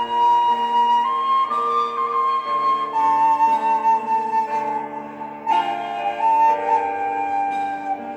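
Khlui, the Thai bamboo flute, playing a slow melody of long held notes over a soft sustained accompaniment.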